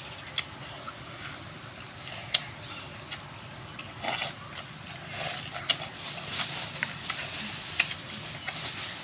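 Close-up eating sounds: chewing and crunching food, with scattered sharp clicks and crackly bursts that get busier about halfway through.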